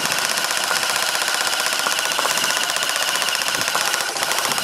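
Airsoft M60 support guns firing sustained full-auto, a fast, even mechanical rattle that runs on without a break.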